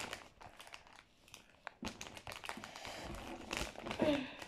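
Plastic chip packet crinkling and crackling as it is squeezed and handled, in irregular bursts that grow busier in the second half. A brief vocal sound comes about four seconds in.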